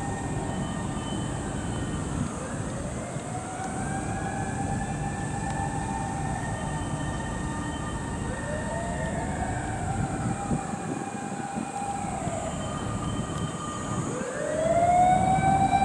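Mechanical motor sirens of fire pump trucks wailing: each winds up in pitch, holds a long steady tone, then winds down, in overlapping cycles several seconds long. A loud wind-up starts near the end. A low rumble runs underneath.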